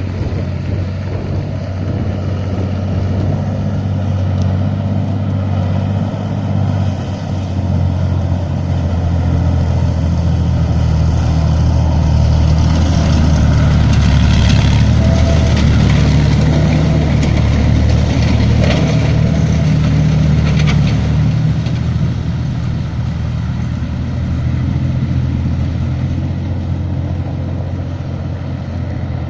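BMP-1 infantry fighting vehicle's UTD-20 V6 diesel engine running as the tracked vehicle drives past. It grows louder to a peak about halfway through, with clanking from its tracks, then fades as it moves away.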